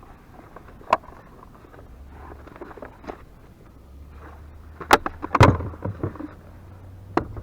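Scattered knocks and clatter on a plastic fishing kayak, with a burst of louder knocks about five seconds in.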